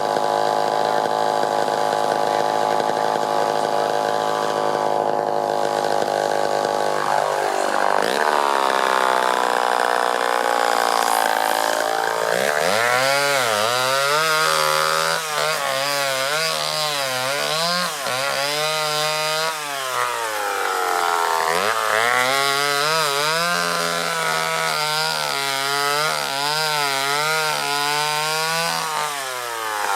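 Homelite Super XL Automatic two-stroke chainsaw running at a steady high speed, which drops about seven seconds in. From about twelve seconds in it is cutting a log, its engine note rising and falling under load, with a dip partway through and another drop near the end.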